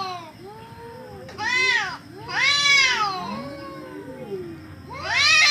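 Cats caterwauling at each other in a fight: three loud yowls that rise and fall in pitch, with quieter, lower drawn-out moans between them.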